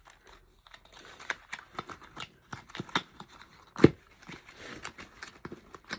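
A perfume sample's packaging being handled and opened by hand: rustling and crinkling with many small clicks and taps, the loudest a sharp knock about four seconds in.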